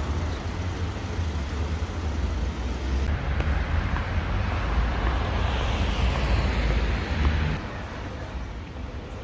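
Outdoor city street noise: a steady traffic rumble with passing cars. It grows louder and hissier about three seconds in and drops off sharply near the end.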